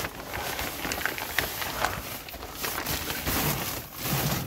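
Plastic crawlspace vapor barrier crinkling and rustling under a person crawling across it, in uneven shuffles and scrapes.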